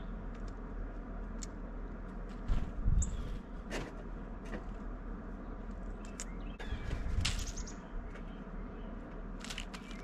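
Birds coming and going at a seed feeder, a northern cardinal leaving and a blue jay arriving: brief wing flutters and short knocks and rustles in the sunflower seeds, with a few faint high chirps, over a steady outdoor hiss.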